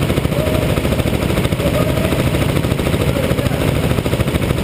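Go-kart engines running together in a pit lane, a loud steady rattling drone of rapid firing pulses, with pitch briefly rising and falling a few times as engines are revved.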